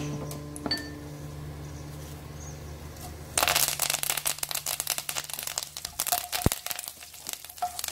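Curry leaves dropped into hot oil with cumin seeds and dried red chillies, spluttering and crackling hard; the crackle starts suddenly a few seconds in and keeps going in uneven bursts of sharp pops.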